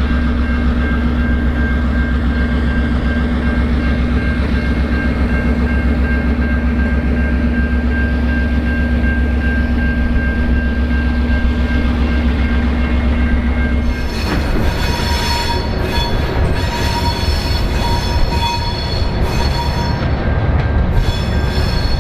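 Diesel-hauled grain train passing: a Victorian S class locomotive's EMD V16 diesel runs with a steady low hum as the hopper wagons roll by, while a level crossing bell rings. About two-thirds of the way through the sound changes abruptly to the wagons' wheels squealing on and off.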